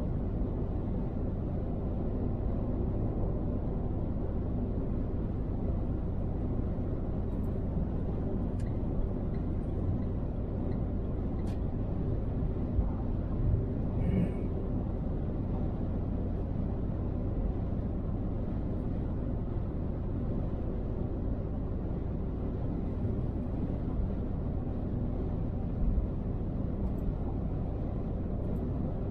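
Steady low rumble of road and engine noise from a car travelling at motorway speed, as picked up by a dash camera, with a few faint clicks.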